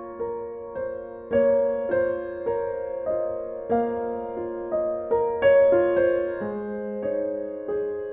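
Soft background piano music: gentle single notes and chords struck about twice a second, each note ringing on as it fades.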